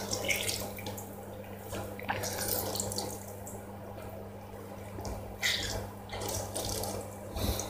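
Lime squeezed by hand over a stainless steel bowl: juice trickling and dripping into the bowl, with short wet squelches from the fruit.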